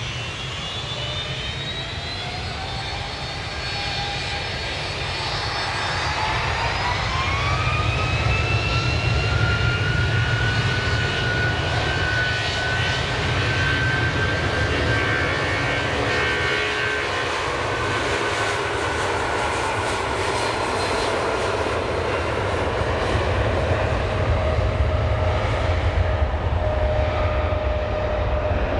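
Jet airliner's engines spooling up to takeoff thrust: a whine climbs in pitch over a few seconds, then holds as a steady high whine over a deep rumble as the aircraft accelerates down the runway.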